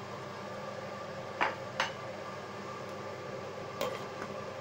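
Steady hiss of a pot of chicken and mushroom stew simmering after water has been added. Three sharp clinks of its glass lid being handled and set back on the pot come about one and a half seconds in, just after, and near the end.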